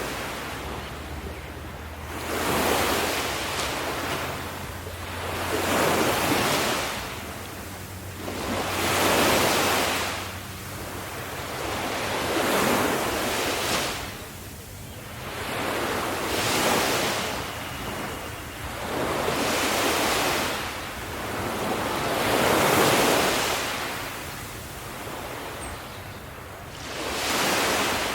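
Ocean waves breaking and washing on the shore, swelling and falling in regular surges about every three to four seconds.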